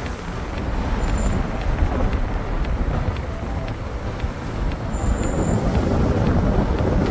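Vehicle driving along a mountain road: a steady low rumble of engine and tyres, with wind buffeting the microphone.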